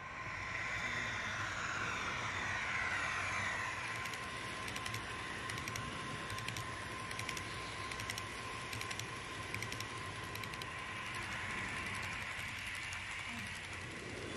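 HO-scale model train running on the track, with a steady whine and a run of light clicks through the middle from the wheels passing over rail joints.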